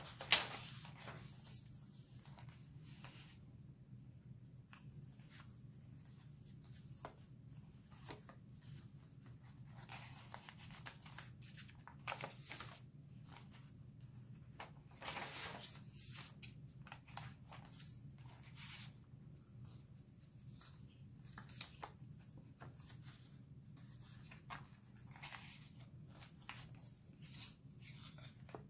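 Paper pages of a handmade journal being turned and handled: intermittent soft rustles and page flaps, the loudest about half a second in and again around a quarter of a minute in, over a low steady hum.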